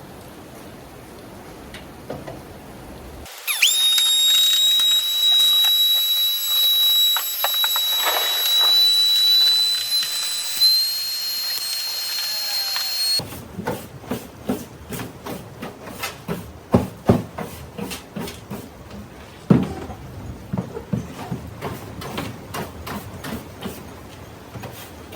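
A small electric blower motor whines at a steady high pitch with a rush of air for about ten seconds, starting about three seconds in and cutting off suddenly. It is followed by irregular knocks, clatters and scraping as junk is cleared out of the bottom of an aluminium fishing boat.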